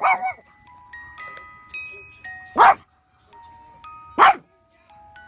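A Pekingese barks three short, sharp times while a small wind-up music box plays a slow, tinkling melody of ringing single notes.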